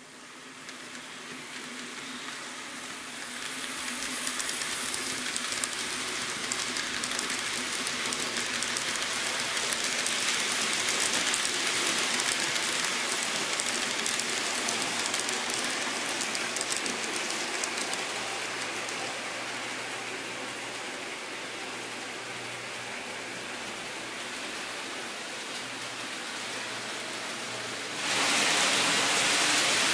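N scale model trains running on track, a steady rattling hiss of small wheels and motor like light rain. It builds over the first few seconds as the model EF210 container train draws near, then eases somewhat. About 28 seconds in it jumps suddenly louder as a model E231 series train runs close past.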